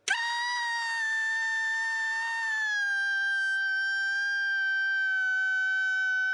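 A man's singing voice holding one very long, very high note with no accompaniment, starting abruptly and stepping down slightly in pitch about two and a half seconds in.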